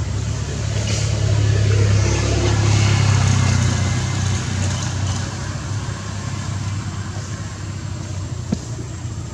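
Motor engine running with a steady low drone that swells louder about two seconds in and then eases off, with a single sharp click near the end.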